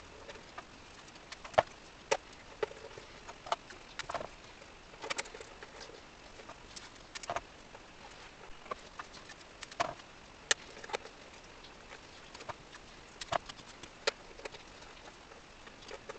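Irregular small clicks and taps of hands tearing off and pressing down strips of adhesive tape onto celluloid on an accordion, over a faint hiss.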